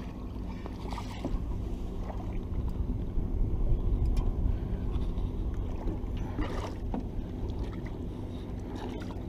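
Boat's Evinrude E-TEC outboard running at idle, a steady low hum, with a few light knocks from handling the rod about a second in and again around two-thirds of the way through.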